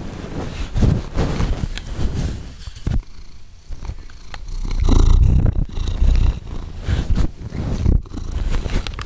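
Domestic cat purring close to the microphone, a low pulsing rumble that swells loudest around the middle, mixed with its breathing and small clicks from its mouth and nose.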